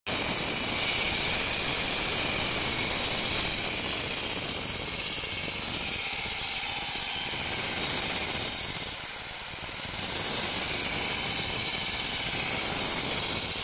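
Water-fed diamond core drill on a rig stand running steadily as it bores through a concrete foundation wall. The noise is even, with a slight dip about nine seconds in.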